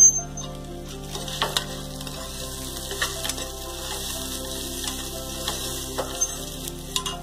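Washed long-grain rice sizzling as it fries in hot oil in a pressure-cooker pot, stirred with a steel spatula that clicks and scrapes against the pot now and then, with a sharp click right at the start. The rice is being fried well so that it won't turn mushy once water goes in.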